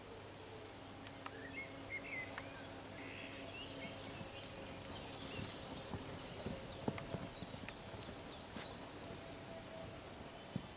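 Hoofbeats of a mare and her foal trotting and cantering loose on sand arena footing: irregular, soft knocks. Birds chirp in the first few seconds.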